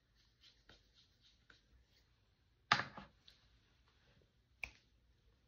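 Light clicks and taps of makeup containers and tools being handled, with one louder knock a little under three seconds in and a sharp click near the end.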